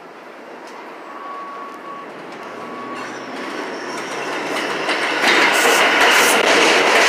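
New York City subway train arriving on an elevated line, growing steadily louder as it approaches, then loud from about five seconds in as the cars come alongside. The wheels clatter over the rail joints, with a faint steady whine from the train before it draws close.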